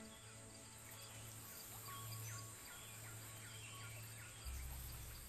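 Faint wildlife ambience of short, high, falling chirps repeating over a steady high hum, with a low held note of background music underneath; a deeper bass note joins near the end.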